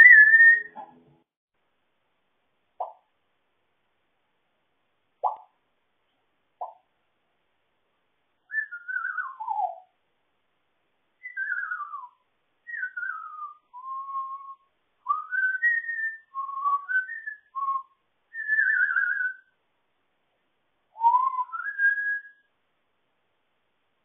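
African grey parrot whistling a tune: a loud whistled note at the very start, three brief faint sounds, then about fourteen seconds of phrases of short whistled notes, many gliding downward.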